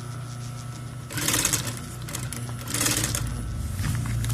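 Electric sewing machine running, its needle stitching fabric in a fast, even rhythm that grows louder after about a second, with two brief rustles of the fabric being handled.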